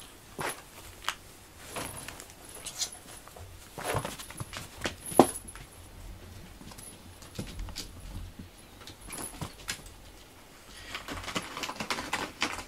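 Two cats scuffling: scattered short knocks and scrapes of paws and bodies, with light jingling from a collar. The sharpest knock comes about five seconds in.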